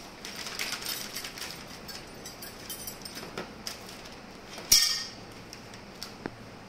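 Plastic parts bag rustling and crinkling as it is handled, with small hard parts clinking inside. One sharp, louder clack about two-thirds of the way through.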